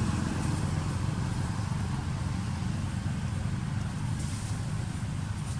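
A steady low engine hum.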